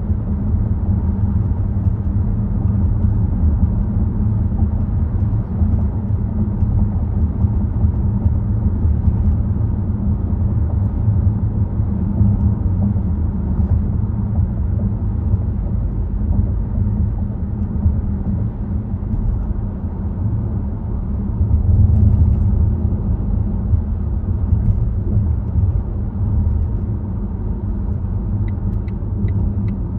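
Volvo XC60 driving, a steady low rumble of road and tyre noise with the engine underneath. Near the end a run of quick, evenly spaced ticks, about three a second, starts over the rumble.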